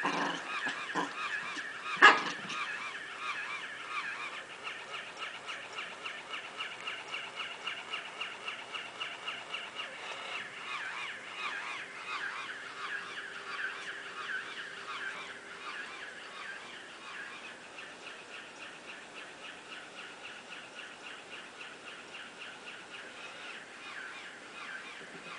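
Battery-operated walking plush pig toy running, giving a steady rhythmic sound of about two to three pulses a second that grows quieter after the middle. A sharp knock about two seconds in is the loudest sound.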